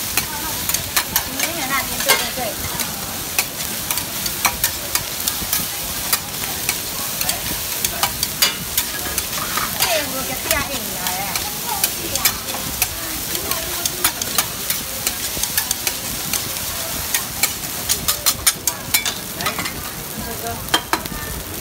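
Egg fried rice sizzling on a large flat griddle while a metal spatula scrapes and clacks against the iron surface, chopping and spreading the rice. The clacks come throughout, in quick runs near the end.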